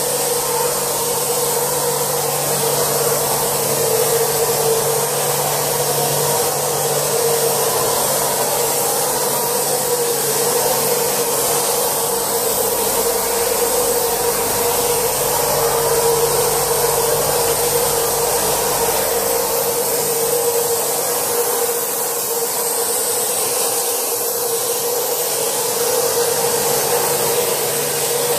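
A flocking machine blowing spray-on insulation out through a hand-held spray gun: a steady hiss of air with a constant hum under it.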